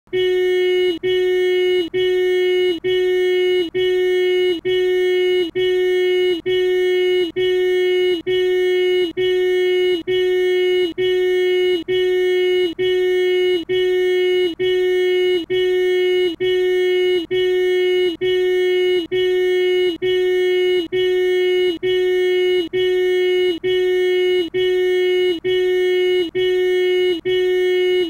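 Volkswagen Jetta horn sounding a short single-note "meep" over and over, about once a second, each honk the same length with a brief gap between.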